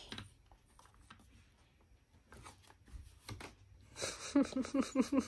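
Faint clicks and rubbing of a plastic Play-Doh ice cream maker being handled as its press is pushed down and the play-dough is squeezed out. Voices start about four seconds in and are louder than the handling.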